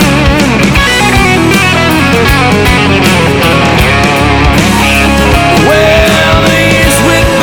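Country-rock music: an instrumental break led by guitar over a steady drum beat.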